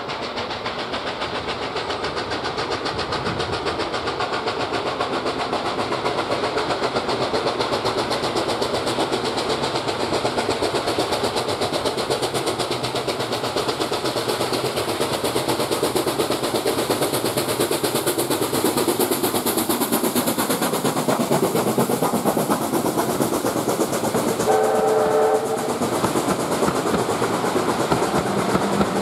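A steam locomotive working a train of coaches approaches, its exhaust beats and running noise growing steadily louder. Near the end it gives one short whistle blast, and the coaches roll past close by.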